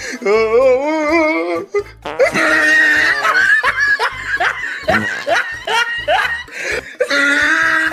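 Music with a beat, with a person laughing over it.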